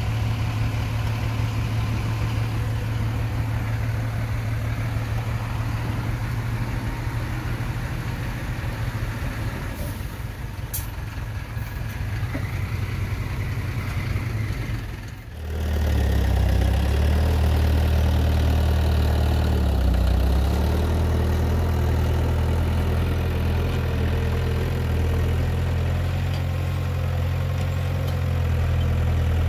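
Diesel engines of heavy earthmoving machinery running steadily with a low drone. About halfway through, the sound dips briefly and comes back deeper and louder.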